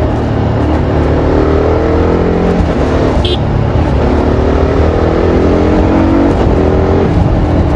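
TVS Apache RR310's single-cylinder engine through its stock exhaust, pulling through the gears: its pitch climbs steadily and drops sharply twice, about two and a half and six seconds in, as the rider shifts up. A brief high chirp sounds about three seconds in.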